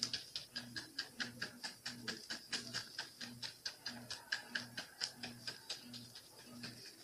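A wide flat bristle paintbrush dabbing paint onto a painting panel: quick scratchy taps, about four or five a second. A faint low pulsing hum sits beneath.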